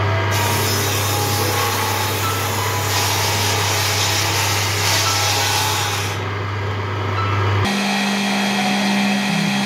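Table saw set into a homemade wooden bench, running with a steady hum while a board is ripped along its fence. About eight seconds in, the sound switches abruptly to a higher steady hum.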